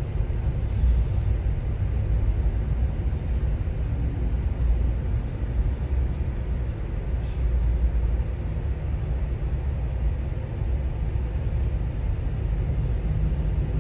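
Steady low rumble of vehicle engines and traffic in a slow-moving traffic jam.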